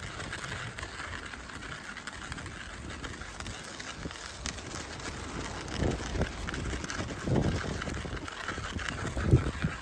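Baby stroller pushed along an icy, snow-covered footpath: a steady scraping of wheels and footsteps on the ice, with a few low rumbling surges in the second half.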